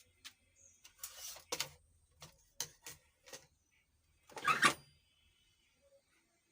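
Handling noise from taking an amplifier's driver board out of its chassis: a string of separate clicks and knocks, then a louder, longer rattling scrape about four and a half seconds in.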